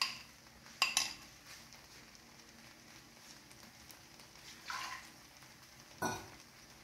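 A bowl and utensils clink and knock against a cooking pot as thick ground masala paste is tipped in, with a pair of sharp knocks about a second in and another near the end. Underneath is a faint steady hiss of vegetables cooking in oil in the pot.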